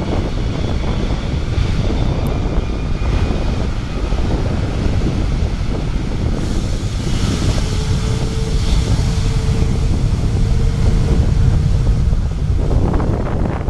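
Wind buffeting the microphone over the low, steady hum of distant jet airliner engines, with a faint steady whine holding for a few seconds in the middle.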